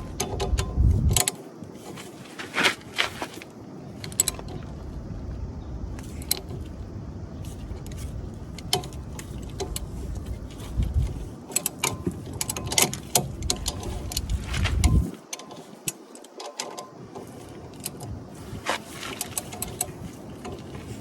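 Scattered metallic clicks and clinks of hand tools and disc brake caliper parts being handled, over a low rumbling handling noise that stops about three-quarters of the way through.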